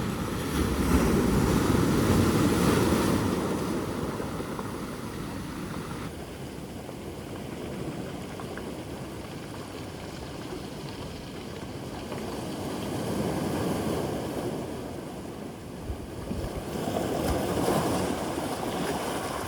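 Sea waves washing, with wind buffeting the microphone. It swells and fades, quieter through the middle.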